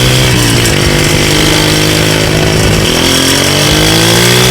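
Loud traffic noise made of several combustion engines running and revving together, their pitches overlapping and climbing in the second half.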